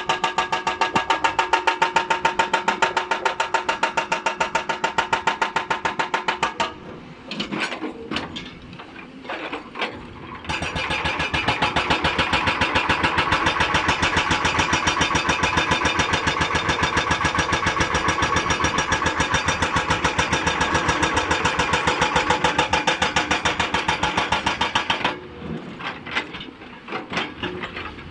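Hydraulic breaker on a Hyundai 290 excavator hammering rock in rapid, steady blows. It stops at about seven seconds in, starts again about three and a half seconds later, and stops again near the end. The excavator's engine can be heard running during the pauses.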